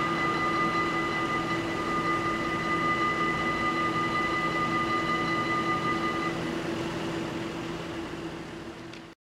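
Level-crossing warning bells ringing steadily while the half-barriers rise after a train, stopping about six seconds in. A low steady hum with a noisy bed carries on, fades, and cuts off just before the end.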